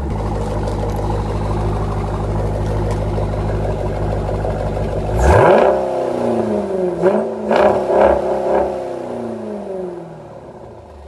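2018 Jeep Grand Cherokee Trackhawk's supercharged 6.2-litre Hemi V8 idling through a newly fitted Borla exhaust, then revved hard about five seconds in and blipped several more times before dropping back to idle.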